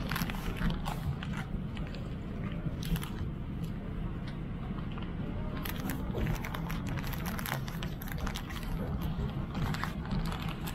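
Clear plastic wrapping on an amenity-kit pouch crinkling and rustling in irregular short crackles as it is handled, over the steady low hum of an airliner cabin.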